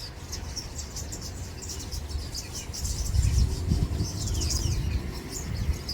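Small birds chirping and twittering in many quick, high calls, with a low rumble coming in about halfway through.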